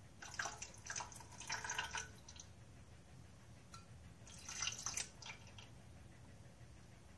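Liquid poured from a small metal jug into the metal pan of a dough-kneading machine in two short spells, splashing and dripping.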